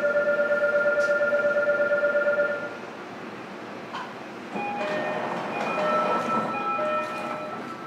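Inside a JR Kyushu 305 series electric train: a steady electronic tone pulsing rapidly for about three seconds. Then, from about four and a half seconds in, the train's motor drive starts up with a louder running noise and a whine that steps between several pitches.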